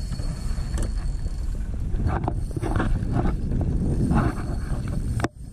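Wind rumbling on the action camera's microphone, with a few short knocks and rustles in the middle. The sound drops out abruptly for a moment near the end.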